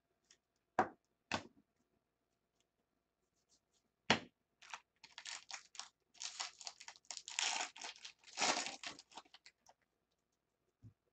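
A few sharp clicks, then a trading-card pack's foil wrapper being torn open and crinkled for several seconds.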